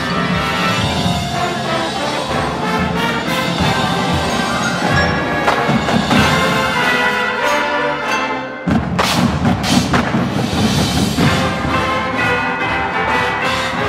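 Marching band playing a loud passage: brass section over drum line, mallet percussion and timpani. A little past halfway the sound drops away for a moment, then comes back in with loud, sharp percussion hits under the brass.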